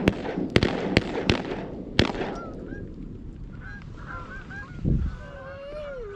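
A flock of Canada geese honking: a loud, dense run of sharp honks that dies away about two seconds in, leaving fainter honks from farther off. There is a dull thump about five seconds in, and near the end a longer call that slides down in pitch.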